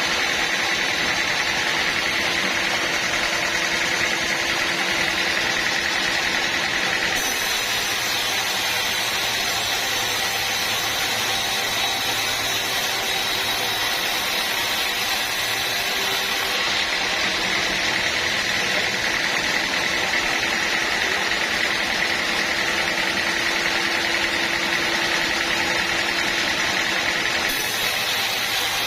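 Sawmill running steadily as it saws a teak log, a constant machine noise with a steady whine; the upper hiss rises and drops back several times.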